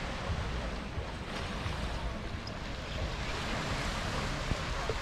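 Sea surf washing onto the shore in a steady rush, with wind buffeting the microphone as a low rumble.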